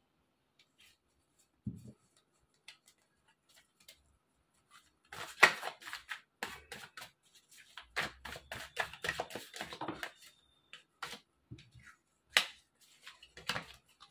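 A deck of tarot cards being shuffled by hand: quiet at first, then about five seconds in a quick run of papery snaps and clicks for several seconds, followed by a few separate snaps near the end.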